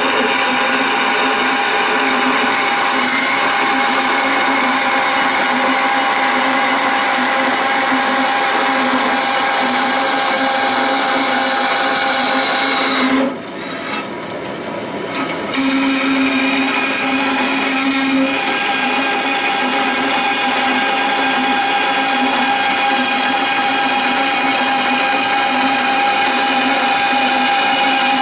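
Small high-speed electric rotary tool running steadily with a high whine while cutting a square relief into a metal part by hand. About halfway through it eases off for a couple of seconds, then picks up again.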